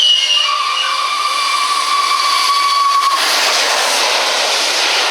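British mainline steam locomotive whistle blowing over a hiss of steam: a high note gives way just after the start to a lower, steady note held for about three seconds. A little after three seconds in the whistle stops and a loud, even rushing noise of the passing train takes over.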